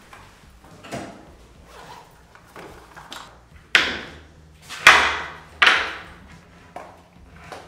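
A door being handled: a string of sudden knocks and swishes, the three loudest about four to six seconds in.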